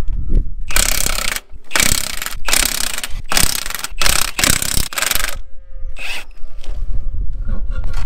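Ratchet wrench clicking in a run of about six strokes, then one more, working the wheel nuts during a wheel change on a Ferguson TVO 20 tractor.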